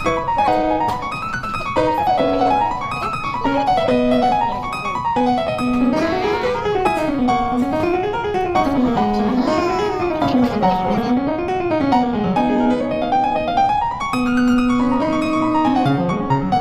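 Background music: a keyboard piece with fast rising and falling runs of notes.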